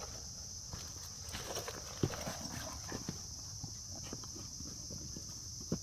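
Scattered light knocks and taps, with two sharper knocks about two seconds in and near the end, over a steady high insect drone.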